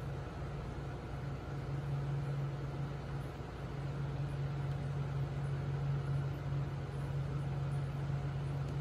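Aquarium pump humming steadily, with an even hiss of water and bubbles.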